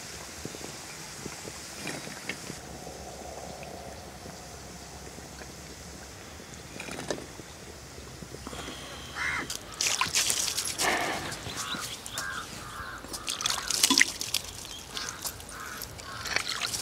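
Hot oil sizzling as corn pakodi deep-fry in a clay pot for the first couple of seconds. About halfway through, water starts splashing and trickling as it is poured from a mug, with sharp clatters and crows cawing.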